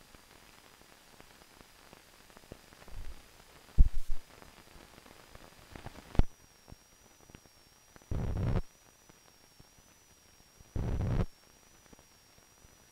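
Run-out noise of an old film print's soundtrack over blank leader: faint static crackle with a few sharp pops, then two short low thumps about half a second each in the second half, over a faint steady high whine.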